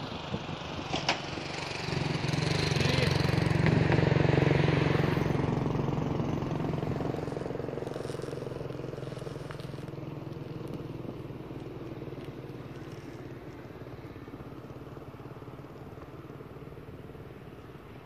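A road vehicle driving past on the bridge: its engine hum and tyre noise build up about two seconds in, peak a couple of seconds later, then slowly fade away.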